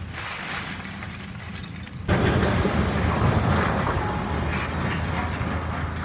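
Demolition machinery's engine running steadily under load, joined about two seconds in by a sudden, louder, noisy rumble that is typical of masonry being torn down.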